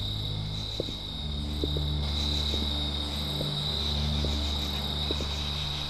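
Crickets chirring steadily at night over a low, even hum, with faint slow footsteps on asphalt.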